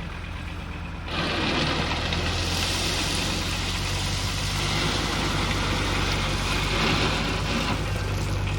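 Kubota tractor's diesel engine running steadily, with a loud rushing noise joining about a second in.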